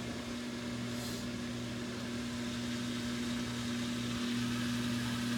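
GE front-load washer's drain pump running during its diagnostic pump test, a steady low hum; the pump is working normally.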